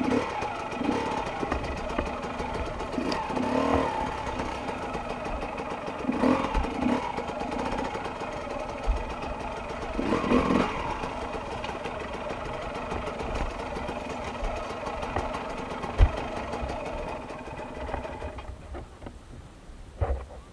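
Enduro dirt bike engine running at low revs over a rocky trail, with short bursts of throttle every few seconds and a sharp knock about two-thirds of the way through. Near the end the engine dies away.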